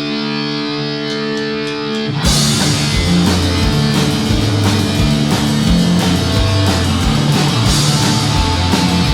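Live rock band starting a song. An electric guitar chord rings out alone, four quick clicks follow, and about two seconds in the drums, bass and guitars come in together at a driving beat.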